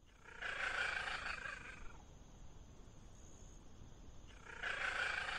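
A cat giving two drawn-out calls, the first about half a second in and lasting over a second, the second starting near the end.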